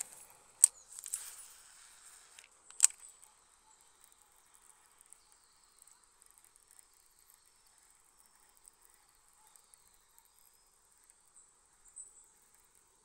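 Crickets and other insects chirping steadily in a continuous high-pitched drone. Two sharp clicks stand out, one about half a second in and one about three seconds in.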